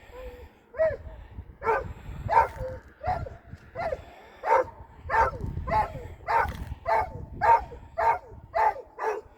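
A dog barking over and over in short, pitched barks, about one and a half a second, starting about a second in.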